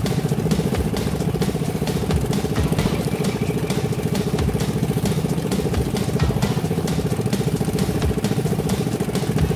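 A homemade wooden jet ski's 7.5 hp engine running steadily at part throttle, about 30%, driving its propeller.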